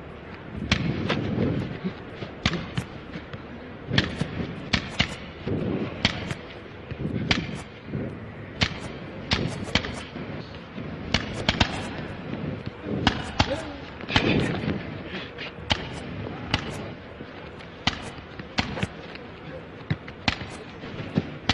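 A football being kicked and touched with the foot: a series of sharp, irregular kicks, roughly one or two a second.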